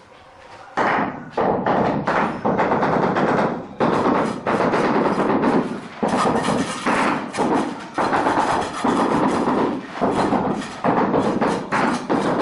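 Wooden handle tapped end-on, rapidly and repeatedly, on a 60x60 cm ceramic floor tile, knocking it down into its mortar bed to bring it level with the neighbouring tile. The tapping starts about a second in and goes on without a break.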